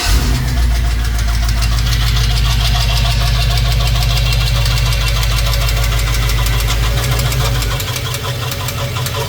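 A 5.3 L LS V8 engine running just after starting, with a rapid knocking through its idle. The knock comes from a failed lifter and a spun bearing, caused by cheap eBay lifters. The deep low drone drops away about eight seconds in.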